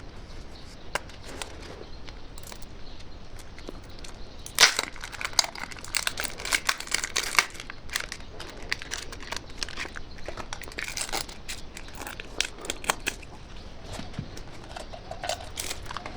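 Crisp crackling and crunching from candy, close up: a dense run of sharp crackles starts about four and a half seconds in and lasts about three seconds, with scattered crunches later on.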